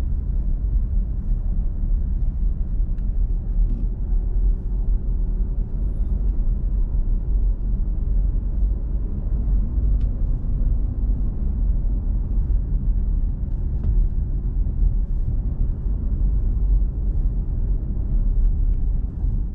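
Steady low rumble of a car driving at highway speed, engine and tyre noise heard from inside the cabin, with a few faint ticks.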